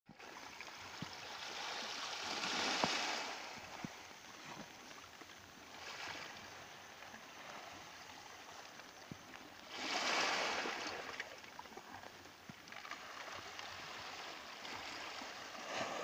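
Small waves of a calm sea washing ashore, each wash swelling and fading every few seconds, with scattered small clicks.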